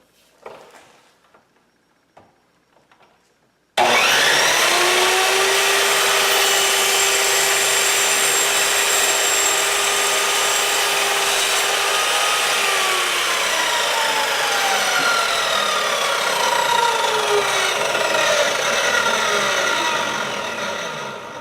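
Electric miter saw switched on about four seconds in, starting abruptly and running with a steady whine as it cuts a PVC end cap. In the second half its pitch falls gradually as the blade spins down, fading near the end.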